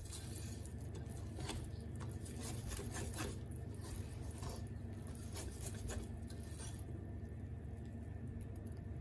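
Wire balloon whisk beating thick, wet chocolate cake batter by hand in a ceramic bowl: a run of soft squelching taps and scrapes of the wires against the bowl, stopping near the end as the whisk is lifted out. A steady low hum lies underneath.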